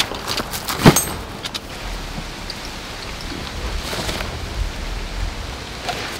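Camping gear being handled: a nylon tent bag rustling and a sharp knock with a brief bright clink about a second in as the aluminium poles are taken out. Then tent fabric rustles over a steady hiss.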